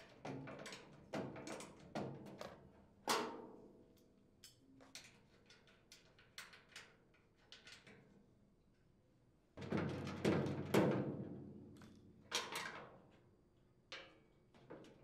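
Hand tools working the nuts and bolts on a chipper shredder's steel hopper support plate: scattered metal clicks and knocks from the wrench and socket, and from parts being handled. A louder metal clatter starts about ten seconds in and lasts about two seconds.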